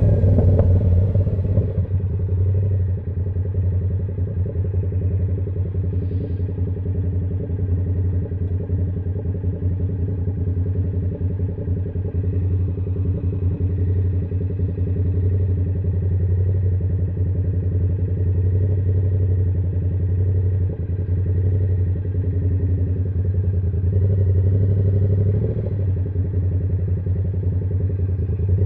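Yamaha R7's parallel-twin engine through an SC-Project exhaust, dropping from higher revs in the first couple of seconds to a steady low-rev run, with a slight lift in revs near the end.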